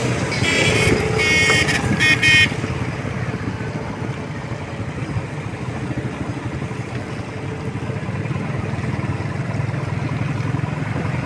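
Street traffic: engines run steadily, and a high-pitched vehicle horn honks in several short blasts during the first couple of seconds.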